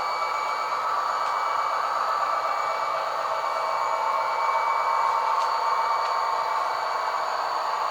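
Model train running on a layout track: a steady whir from its small motor and wheels, with a few faint clicks.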